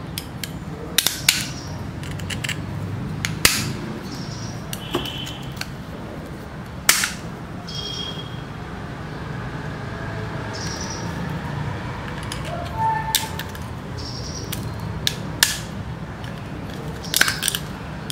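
Sharp snaps and cracks as pieces of a spiral seashell's wall are broken off with small cutting pliers, several single snaps at irregular intervals with pauses between.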